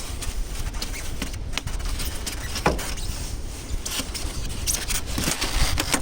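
Handling and rummaging noises: scattered small clicks and scrapes of tools and objects being moved about, over a steady low rumble.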